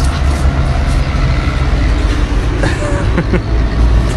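Loud, steady low rumble of street traffic noise.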